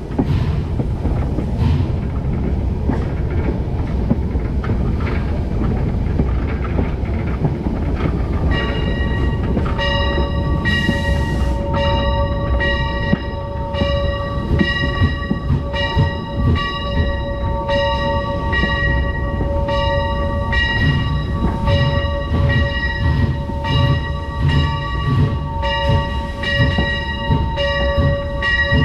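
Steam train running along the track, its wheels rumbling on the rails. From about eight seconds in, the locomotive's bell rings steadily, struck about once a second, with a brief hiss a few seconds after it starts.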